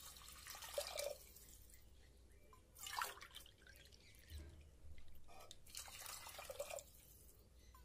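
Water poured into a pressure cooker of soaked urad dal, faint, in three separate pours.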